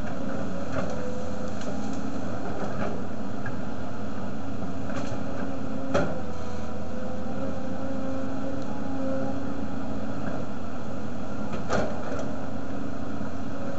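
Volvo crawler excavator's diesel engine running steadily as the machine works its bucket through brush, with two sharp knocks, one about six seconds in and another near the end.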